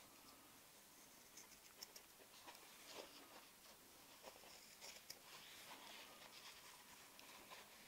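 Scissors cutting a circle out of thin leather: faint, irregular snips and the soft rustle of the hide being turned.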